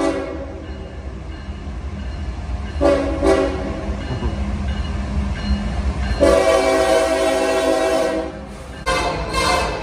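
Approaching diesel freight locomotive sounding its horn: a short blast about three seconds in, a long blast from about six to eight seconds, and another starting near the end, over the steady low rumble of the train.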